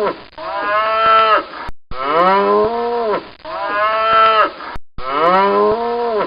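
Buffalo lowing: a series of long, deep moos, each rising then falling in pitch, with the same pair of calls repeating over and over as a looped recording.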